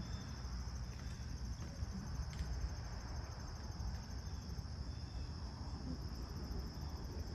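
A steady, high-pitched insect chorus of chirring crickets, with a low rumble underneath.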